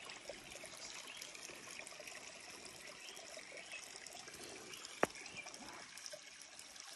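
Faint trickling water, running steadily, with a single sharp click about five seconds in.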